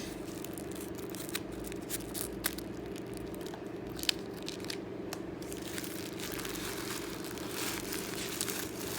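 Paper wrapping crinkling and tearing as a pen is unwrapped by hand, with a few sharp clicks in the first half and denser crinkling over the last few seconds.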